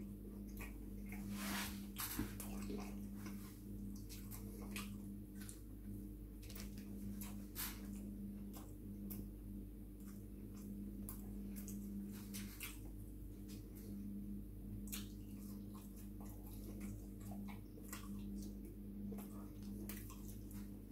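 Close-mouthed chewing and wet lip-smacking as chip-shop chips are eaten by hand, a string of short moist mouth clicks over a steady low hum.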